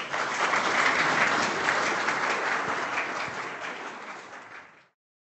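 Audience applauding, slowly dying down, then cutting off suddenly near the end.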